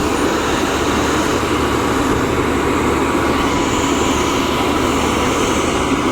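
Reverse circulation drilling rig running steadily under load: a loud, unchanging engine and machinery noise.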